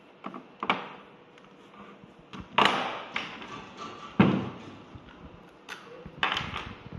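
Several separate knocks and clicks from aluminium-cased e-bike tube batteries being handled and stood on a wooden table, the two loudest knocks about two and a half and four seconds in.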